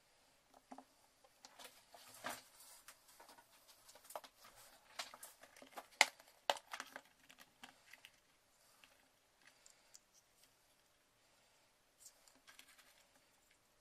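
Clicks and light rattling of a plastic assortment box of heat-shrink tubing being handled and opened, with two sharp plastic snaps about six seconds in, then faint rustling as a piece of tubing is picked out near the end.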